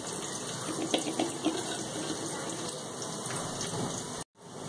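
Chopped holy basil leaves squeezed and crushed by hand in a steel bowl to press out their juice: soft wet squishing with a few light clicks against the bowl, over a steady water-like hiss. The sound drops out for a moment near the end.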